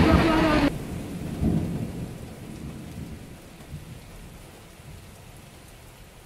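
Heavy rain and a rushing flood torrent that cut off suddenly less than a second in, leaving a low rumble that slowly fades away.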